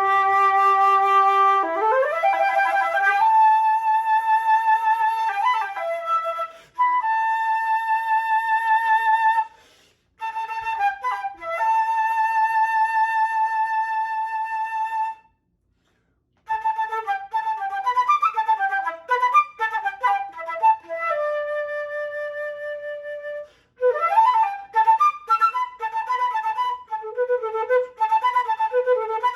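Unaccompanied solo flute playing: long held notes with vibrato alternate with quick runs of notes. Between phrases the flute stops briefly, once for about a second midway.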